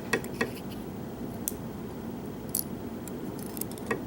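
A few light, separate metallic clicks of small lock parts, the springs and pins of a pin-tumbler lock, being handled and set down while the lock is taken apart.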